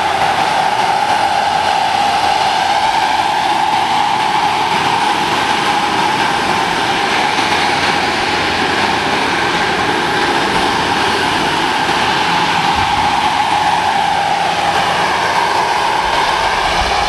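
Model gas turbine of a 1:5.7 scale radio-controlled EC 145 helicopter running at flight power with a steady, high whine while the helicopter hovers and flies. The whine's pitch wavers slightly near the end.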